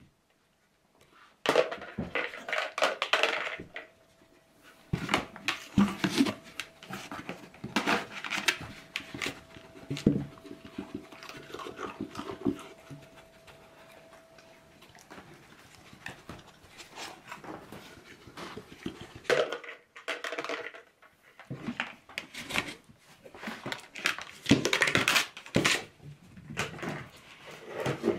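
Lemon beagles sniffing and panting as they nose a plastic bucket around in search of a treat, the bucket knocking and scraping in many irregular bumps. A faint steady hum runs under the first half.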